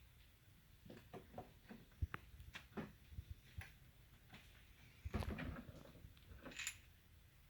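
Faint handling of small hard parts: scattered light clicks and taps, with a brief cluster of rustling knocks about five seconds in.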